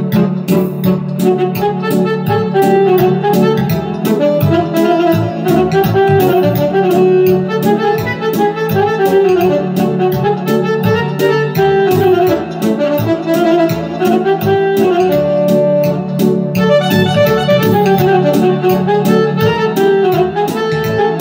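Electronic keyboard played live in an instrumental break: a lead melody over sustained chords and a steady beat.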